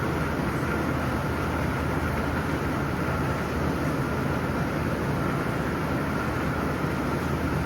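Steady rainfall: an even, unbroken wash of noise with a strong low rumble.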